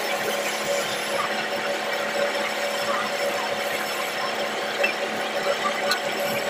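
Wood lathe running with a steady hum while a hand chisel cuts into the spinning wooden leg blank, a continuous scraping of wood being turned, with a few small clicks near the end.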